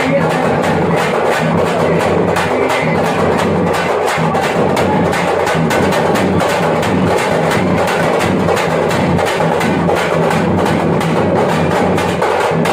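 Thappattam (parai) frame drums beaten with sticks in a fast, steady, even rhythm.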